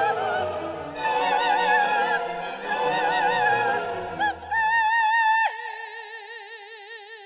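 Operatic singing with a wide vibrato over orchestral accompaniment, on the words 'gone, gone… lost, lost… despair'. Near the end the voice drops about an octave and holds a long note that fades away as the orchestra falls silent beneath it.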